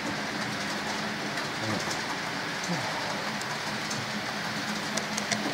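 Model steam locomotive running along the track of a model railway layout: a steady whir of its motor and wheels rolling on the rails.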